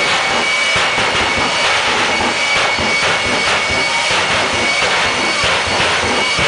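J79 turbojet engine of a jet-powered semi truck running loud and steady: a rough, even roar with a high whine held on one pitch.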